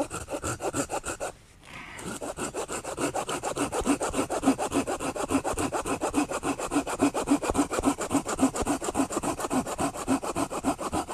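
Small folding pruning saw with a 13 cm blade (Silky Pocket Boy) cutting through a branch in quick back-and-forth strokes. After a short start it stops briefly about a second and a half in, then saws on steadily.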